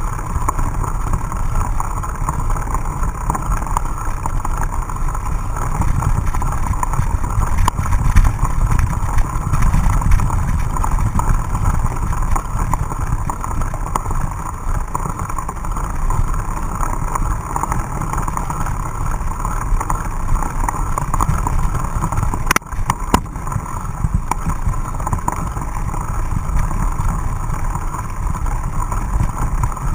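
Steady rumble and rattle of a mountain bike ridden over a muddy dirt trail, picked up by a camera on the bike or rider. A few sharp clicks come about three-quarters of the way through.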